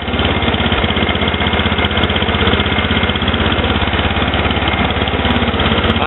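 Snapper LT11 lawn tractor's Briggs & Stratton engine running steadily while the tractor drives across the grass, its carburettor just adjusted for cold weather so that it runs okay.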